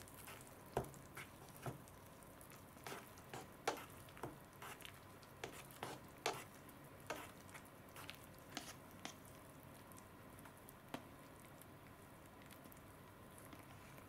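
Plastic chopsticks stirring and lifting wet instant noodles in a paper cup: faint, irregular clicks and taps against the cup with soft wet squishes. The clicks come thick for most of the time and thin out near the end.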